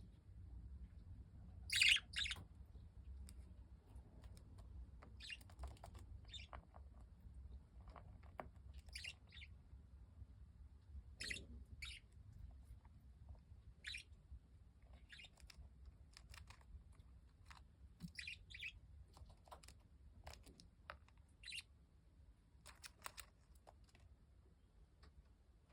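Pet budgie giving short, scattered chirps and clicks, a louder pair about two seconds in.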